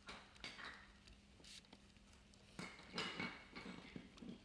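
Pen writing on paper: faint, irregular scratching strokes with a few small taps of the pen tip.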